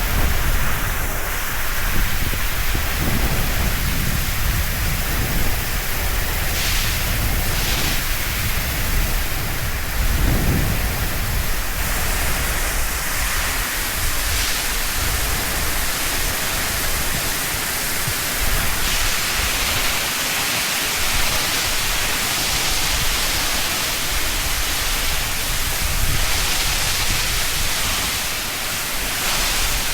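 Water from a wash-down hose spraying onto the concrete of a dairy milking shed: a steady rushing hiss that changes in tone now and then as the spray moves.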